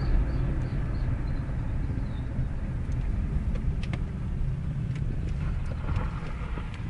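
Vehicle engine running steadily while moving slowly: a continuous low rumble with a light haze of road or wind noise.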